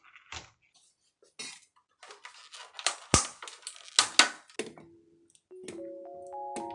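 Kitchen handling sounds: a run of clicks, knocks and clatter as containers and utensils are moved about, with one sharp knock about three seconds in. Light bell-like background music comes in near the end.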